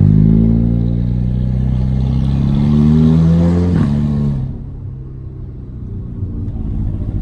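Turbocharged Audi A3 (8P) with a downpipe and 2.5-inch straight-pipe exhaust accelerating, its exhaust note climbing for a few seconds. About four seconds in the throttle comes off and the engine drops to a lower, quieter rumble.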